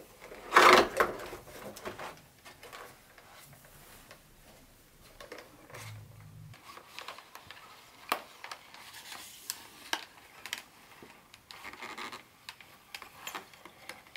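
Packaging of a boxed model train set being handled and opened: cardboard and plastic rubbing and sliding, with scattered light clicks, loudest about a second in.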